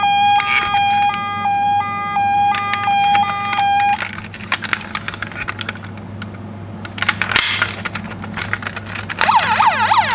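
Toy ambulance's electronic siren sounding a stepping two-tone pattern, which cuts off about four seconds in. Small plastic clicks and handling of the toy follow. Near the end a fast warbling siren starts, from a toy's sound button being pressed.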